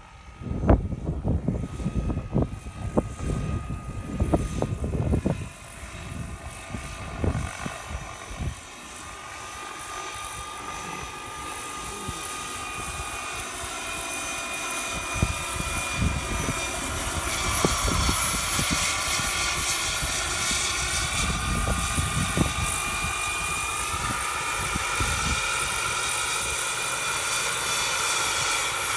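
Turbine-powered RC scale helicopter, a model of an Airbus EC135, in flight. Its small gas-turbine engine gives a steady whine of several high tones that grows louder from about eight seconds in as the model comes closer. Gusty low rumbling fills the first several seconds.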